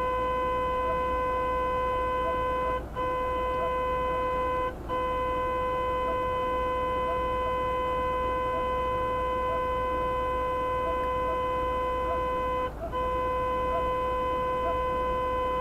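Car horn held down in one long, steady blast, let off for a moment three times.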